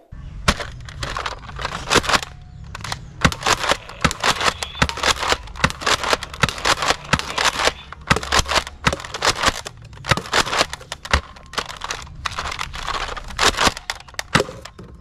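Nerf Elite Surgefire pump-action drum blaster being pumped and fired rapidly, with darts striking cans and targets: a long irregular string of sharp plastic clacks and snaps, several a second.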